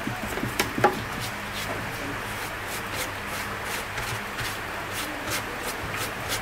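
Irregular light clicks, taps and scrapes of hand work with small tools and parts, the sharpest knock about a second in, over a steady low hum.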